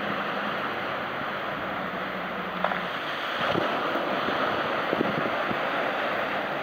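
Steady wash of wind and water, with a faint low hum from the approaching small car ferry's engine that fades out a few seconds in.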